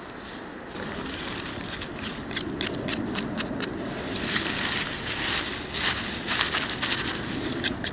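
Dry pine needles rustling and crackling as a hand rakes and scoops them off the ground, in quick irregular bursts that grow busier after about four seconds.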